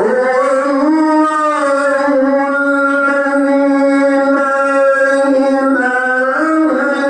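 Male Quran reciter's voice in melodic tajweed recitation, holding one long note. Its pitch shifts slightly about a second in and again near the end.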